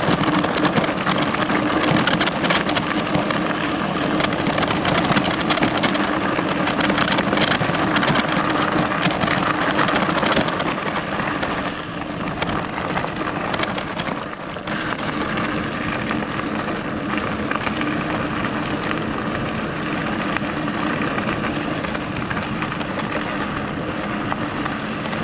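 Bikepacking bicycle riding along a track: steady rushing and crackling of tyres on the surface mixed with wind on the microphone, a little quieter in the second half.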